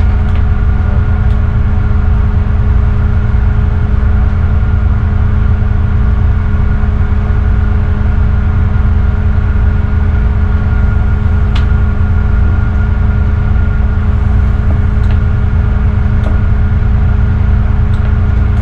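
Tugboat's diesel engines running steadily underway, heard inside the wheelhouse as a loud, even low drone with a steady hum and a fainter high whine. A few faint clicks come and go.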